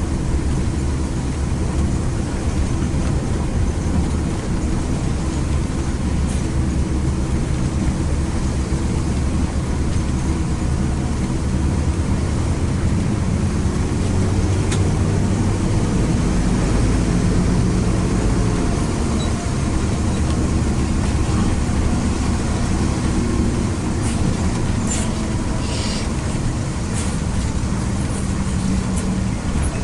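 Intercity coach bus on the move: a steady low engine drone with road noise, the engine note shifting in pitch around the middle.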